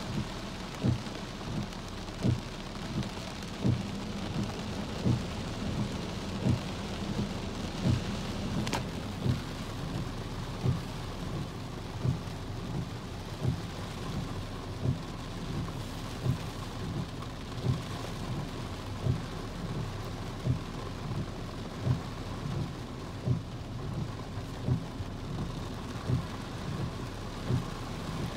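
Heavy rain on a vehicle, heard from inside, as a steady wash of noise. A low thump repeats evenly about every 0.7 seconds.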